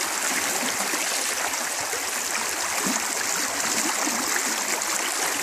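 Fast river current rushing steadily past a wading angler, the river running high.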